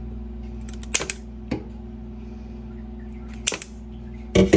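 Kitchen shears snipping through a quail's leg joints: sharp crunching clicks about a second in, another soon after, one more later, and a louder cluster near the end, over a steady low hum.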